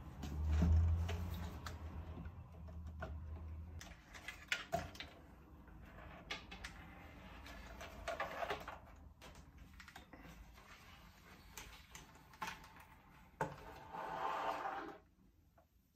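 Handling noise as a vintage Peavey "The Bass" amplifier is taken apart and its power-module chassis pulled from the cabinet: scattered clicks, knocks and taps of metal parts and tools, with a low hum through the first four seconds and a longer rasp near the end.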